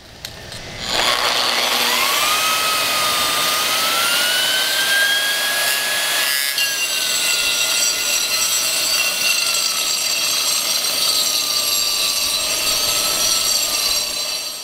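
AGP SM7 concrete grinder starting up: its motor whine climbs quickly in a soft start, then the machine runs loud with a harsh grinding rasp under a whine that wavers in pitch. About six seconds in the whine drops slightly and the sound's texture changes.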